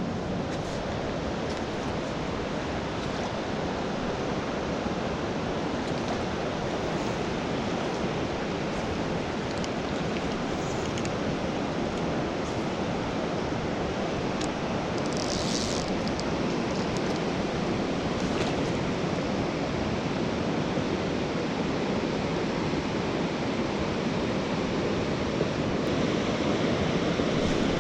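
Steady rush of fast-flowing creek water, running high after rain.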